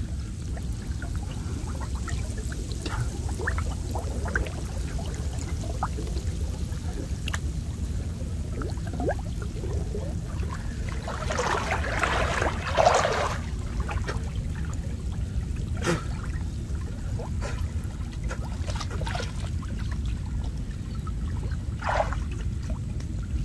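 Water sloshing and splashing around a person wading through a river, with scattered small splashes and one louder rush of churned water about halfway through, over a steady low rumble.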